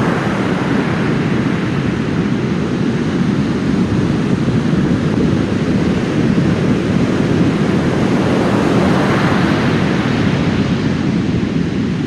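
Heavy storm surf after a typhoon: big waves breaking and washing up a sand beach in a loud, continuous rush. A brighter wash swells up about nine seconds in.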